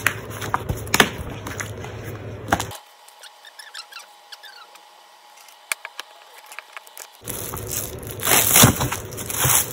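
Paper and plastic album packaging being handled: light taps and rustles, then a few seconds of near-quiet with faint ticks. Louder crinkling rises near the end as the plastic-covered album is picked up.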